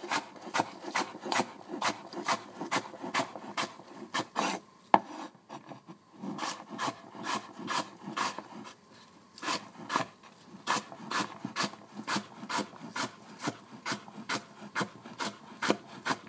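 Cleaver-style knife chopping apple on a wooden cutting board: quick, even chops about two or three a second, with two brief pauses.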